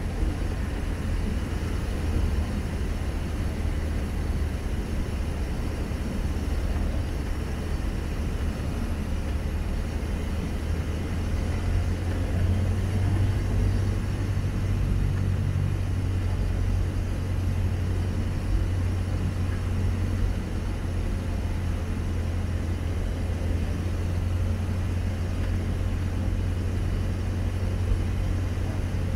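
Cessna 152's four-cylinder Lycoming engine and propeller droning steadily, heard from inside the cabin while the plane is on final approach to land.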